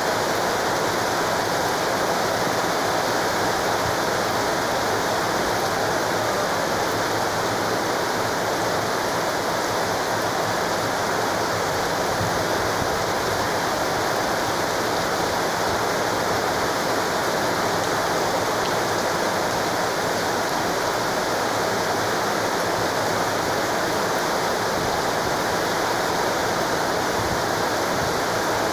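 Very heavy rain pouring down, a loud, steady, unbroken rush of water.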